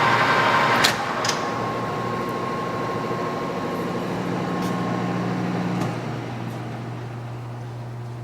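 Clausing Colchester 13x40 metal lathe running under power. Two clicks about a second in, after which the running sound falls away over several seconds, leaving a steady low hum.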